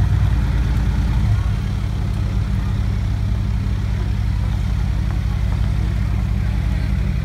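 Mercedes-Benz G500 4x4² V8 running at low revs as the SUV creeps along, a low steady exhaust note, a little louder in the first second and a half.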